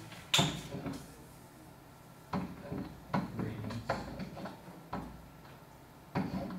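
Scattered knocks and clunks, about half a dozen, the loudest just after the start and the others spread over the next six seconds.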